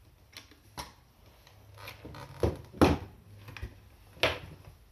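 A handful of sharp knocks and clatters from an airsoft rifle being handled near the floor, at irregular intervals, the loudest a little before three seconds in.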